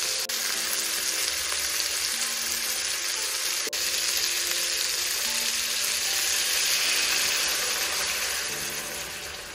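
Chicken pieces sizzling as they sear in a hot stainless steel pot, with a steady frying hiss. The sizzle swells a little as dark sauce is poured over the meat, then fades near the end.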